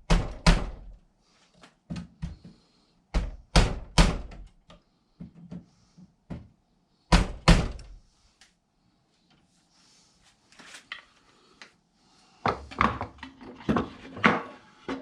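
A series of sharp thunks and knocks, mostly in pairs and small groups with short quiet gaps, and a busier run of knocks near the end: hard objects being handled and set down.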